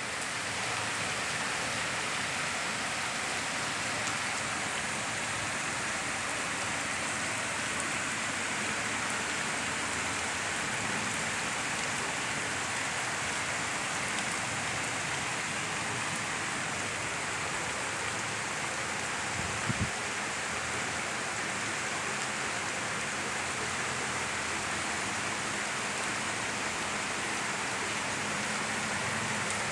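Heavy rain pouring down steadily in a downpour of about 200 mm in a day. A brief low thump sounds once, just before the twenty-second mark.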